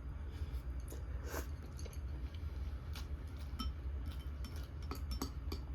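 Mouth sounds of eating, with scattered small clicks and light clinks of utensils against a dish, over a steady low hum.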